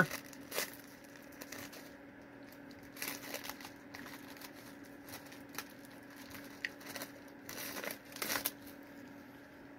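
Thin plastic wrapper of a fruit roll-up crinkling in short, scattered bursts as it is handled and peeled open, over a faint steady hum.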